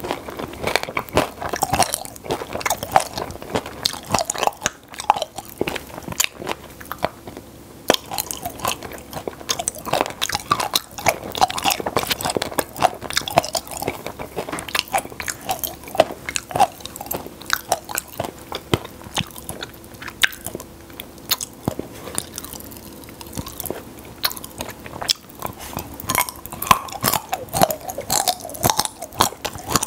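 Close-miked chewing of popping-candy chocolate: a dense run of small crackles, crunches and mouth sounds.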